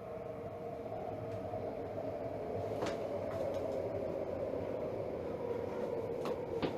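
A steady machine hum that slowly grows louder, with a sharp click about three seconds in and two more near the end.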